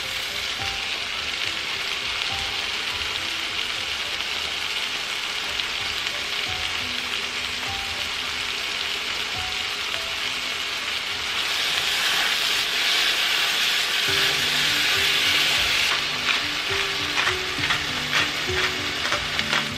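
Ground beef, onion, tomato and pepper sizzling in a frying pan as a tomato sauce cooks down. The sizzle is steady and grows louder about twelve seconds in. Near the end a utensil stirs through the pan with short scraping clicks.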